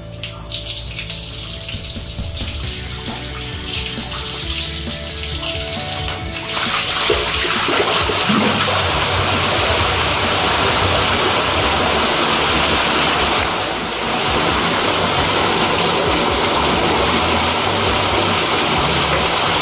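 Dammed-up drain water breaking through a wet-wipe blockage and gushing out of a pipe into a drain inspection pit, the sign that the blockage has been cleared by the drain rod. A hiss builds for the first few seconds, then the water becomes a loud steady rush about six seconds in.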